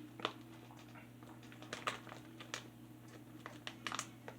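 Faint room tone: a steady low hum with a few scattered soft clicks.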